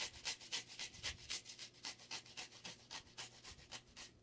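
Cucumber being grated on a handheld metal grater: quick, even rasping strokes, about five a second.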